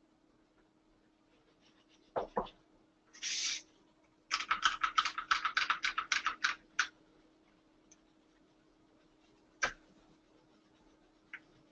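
Handling noises from preparing the liquid gasket on the bench: two knocks, a short hiss, then a quick clattering run of about fifteen clicks, and one more click later.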